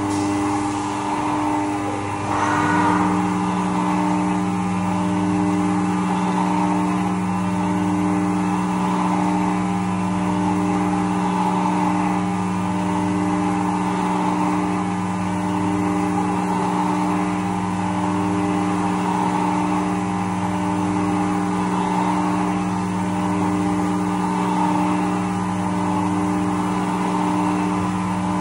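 Haas CNC vertical mill cutting metal with an end mill under flood coolant: the spindle and cut give a steady whine of several constant tones over the hiss and splash of coolant. A brief rasp comes about two and a half seconds in, after which one low tone holds steady.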